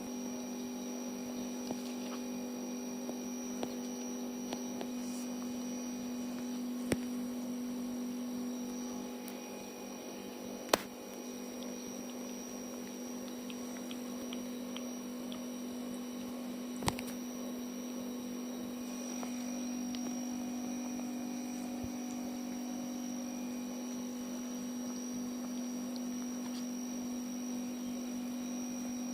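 A steady low electrical-sounding hum, broken by a few sharp clicks.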